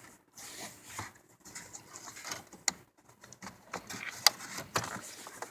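Hands working the plastic wiring plug onto a new Saturn Vue headlight switch: scattered rustling and small plastic clicks, the sharpest clicks near the middle and about four seconds in.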